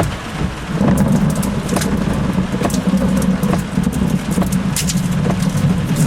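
Heavy rain hitting a car, with separate drops clicking against the body and glass, over a steady low rumble that sets in about a second in.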